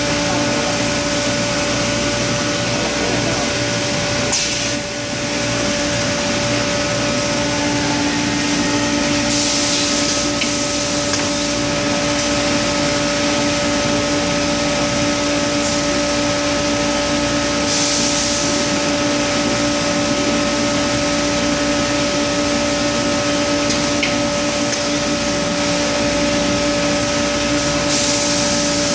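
Automatic rotary card press laminator running: a steady machine hum with a constant pitch, broken by several short hisses a few seconds apart.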